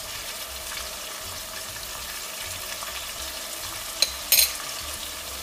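Lamb and onions frying in olive oil in a stainless steel pot, a steady sizzle. Two sharp clicks come about four seconds in, the second louder and the loudest sound here.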